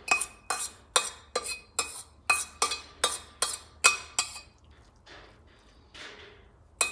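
A metal spoon knocking and scraping against a stainless steel colander, dislodging cooked, drained rice. About a dozen sharp ringing clinks come two or three a second, then give way after about four seconds to softer scraping, with one more sharp clink near the end.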